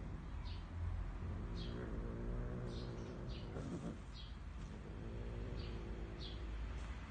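A cat growling low and steadily while guarding its food from a kitten, the growl breaking off briefly about four seconds in. Small birds chirp in short high calls every second or so.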